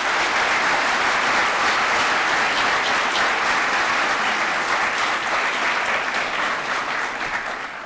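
Audience applauding: many hands clapping steadily, tapering off near the end.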